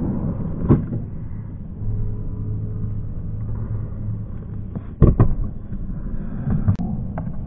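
Skateboard wheels rolling on a vert halfpipe ramp with a steady rumble, broken by sharp knocks of the board and trucks against the ramp and coping about a second in and twice in quick succession around five seconds in.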